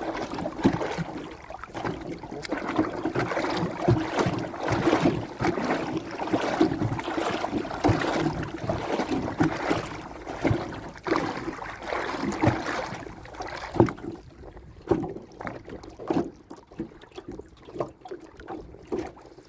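A river-prawn trap being hauled up and handled in a small boat: water splashing and dripping, with irregular knocks and rattles. It quietens about two-thirds of the way through, leaving only scattered clicks.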